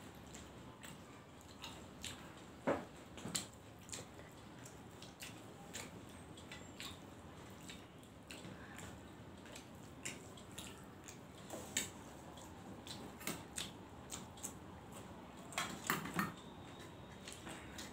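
Hands eating rice and curry from steel plates and bowls: fingers working the food on the metal plates, with scattered light clicks and taps of the steel dishware. One sharper tap comes about three seconds in, and a few more cluster near the end as a hand reaches into a steel curry bowl.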